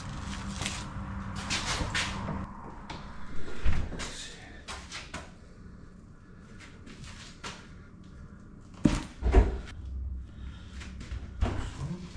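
A door or cabinet door being opened and shut, with scattered knocks and handling clatter: a sharp knock about four seconds in, two loud thumps close together about nine seconds in, and a lighter knock near the end. A steady low hum runs under the first couple of seconds.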